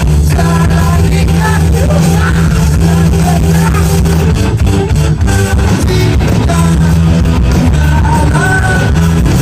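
Rock band playing live and loud: guitar over bass and drums.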